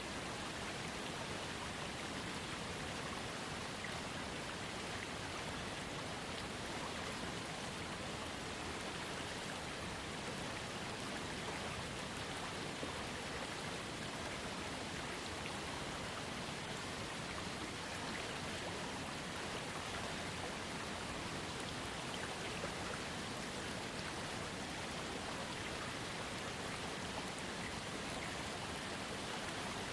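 Small waterfall fed by a trickling creek: a steady splashing rush of falling water with fine patter of drops.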